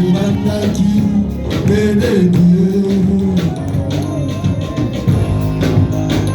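Church music: singing over instruments, with sharp percussion hits throughout.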